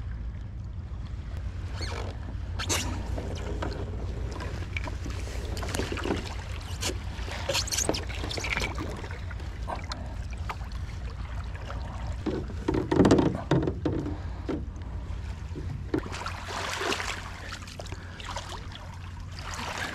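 Epic V9 surfski under way: irregular splashes of paddle strokes and water rippling along the hull over a steady low rumble, the loudest splashes about two-thirds of the way through.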